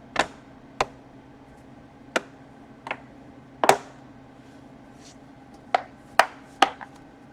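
Plastic laptop case being pressed and fitted back into place: about eight sharp, irregular clicks and knocks.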